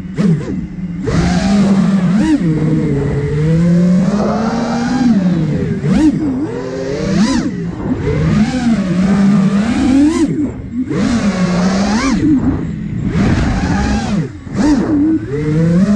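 Motors and propellers of a 5-inch FPV quadcopter, an iFlight Nazgul Evoque F5, buzzing with a pitch that keeps rising and falling as the throttle is worked, with several short rushes of wind noise during fast moves.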